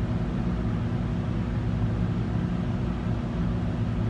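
Steady low machine hum with a few constant tones, unchanging throughout.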